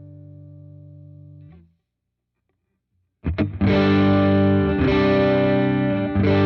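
Electric guitar through a Dr. Z Maz 38 Senior Reverb 2x12 valve combo amp. A held chord rings and is cut off about a second and a half in. After a short silence, loud strummed chords start about three seconds in and change chord twice.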